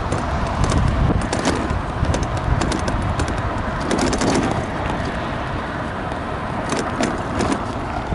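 Wind buffeting the microphone of a moving electric scooter, a steady low rumble, with frequent small clicks and rattles as it rolls over the paved path.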